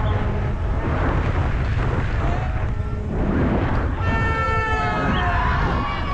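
Helmet-camera audio of a downhill mountain bike at race speed: steady wind rush and the rumble of tyres and bike on the dirt track. A long shout from a spectator stands out about four seconds in.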